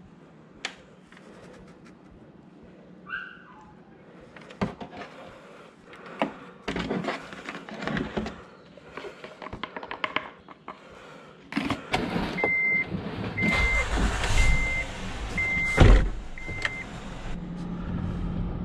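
Scattered knocks and clicks of handling, then a car's warning chime beeping five times, about once a second. A heavy thump comes near the end of the beeps, and a low steady hum follows.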